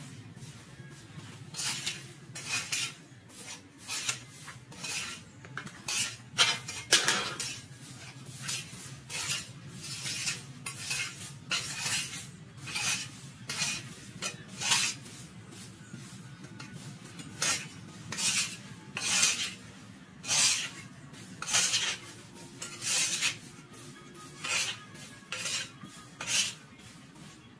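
Repeated scraping strokes of a hand tool in garden cleanup work, roughly one a second and uneven in spacing, over a faint steady low hum.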